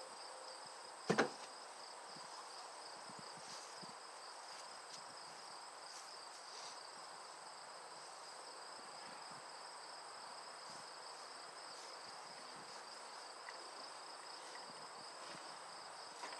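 Crickets chirring steadily at two high pitches, with one sharp knock about a second in.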